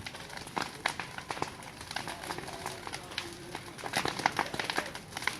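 Large open fire crackling, with a dense, irregular stream of sharp pops and snaps over a steady hiss of burning.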